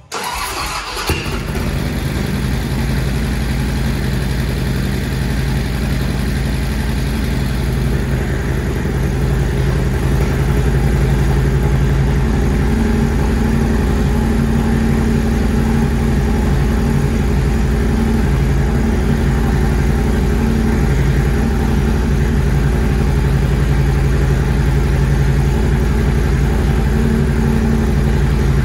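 2010 Harley-Davidson CVO's 110 cubic inch V-twin starting for the first time after a camshaft and lifter install. It catches at once and settles into a steady idle. The new lifters tick for only a couple of seconds after start-up before going quiet.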